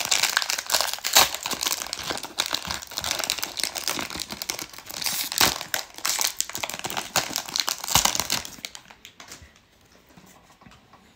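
Plastic wrapper of a baseball card pack crinkling and tearing as it is peeled open by hand, a dense run of sharp crackles. It stops about eight and a half seconds in, leaving only faint handling of the cards.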